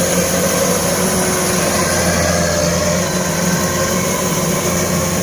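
Kubota DC-105 rice combine harvester running steadily as it cuts ripe rice: a constant low diesel engine hum mixed with the whir of the cutting and threshing machinery, easing off slightly about three seconds in.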